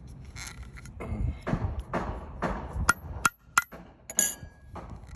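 Screw lid of a jar of salted shrimp paste being twisted by hand: about four rasping turns, then three sharp ringing clicks and a short clink about four seconds in.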